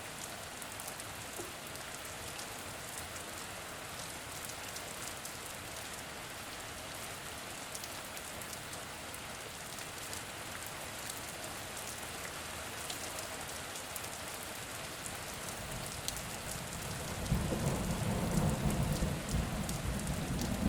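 Steady rain falling on forest leaves: an even hiss dotted with fine drop ticks. Near the end a deep rumble comes in, louder than the rain.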